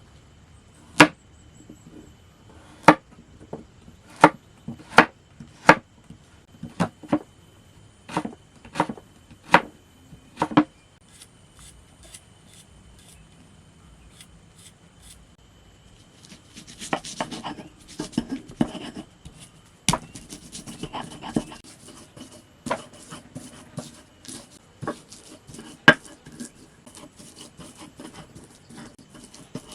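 Knife chopping on a wooden cutting board: single sharp chops, spaced and uneven, for the first ten seconds or so. After a pause, more than halfway through, they turn into rustling handling with quicker, lighter knocks.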